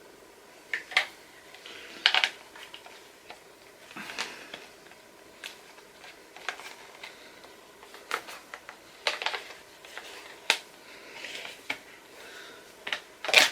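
Small plastic toy parts clicking and tapping at irregular moments as a Playmobil dragon's wing is pushed and twisted at its shoulder socket, with a few sharper clicks. The wing clicks at the joint but does not stay in.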